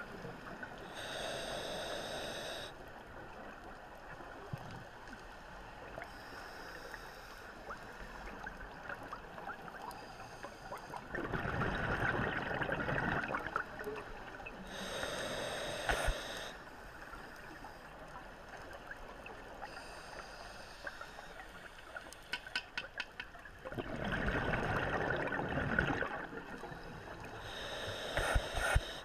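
Scuba diver breathing through a regulator underwater: short hissing inhales and two longer, louder rushes of exhaled bubbles, in a slow cycle of roughly twelve seconds.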